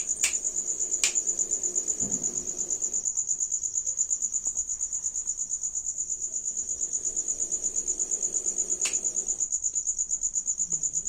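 Cricket chirping in a steady high-pitched trill that pulses several times a second, with a few faint clicks near the start and again about nine seconds in.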